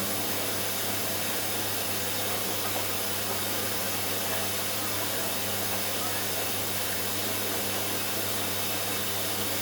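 Hoover washing machine running through the final rinse of its Daily 59-minute programme, with a constant hiss over a steady low hum.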